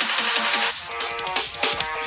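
Electronic background music with a fast beat.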